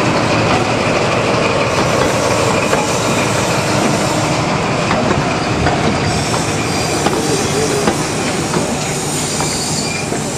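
High Speed Train with a Class 43 diesel power car and its coaches rolling slowly past, the engine running steadily under the sound of the wheels on the track, with a few light clicks over the rail joints.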